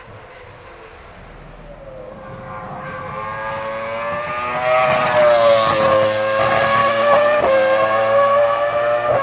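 Formula 1 Cosworth 3.0-litre V10 running at high revs. It grows louder as the car approaches over the first five seconds, then holds a loud, steady high-pitched note with a few brief dips.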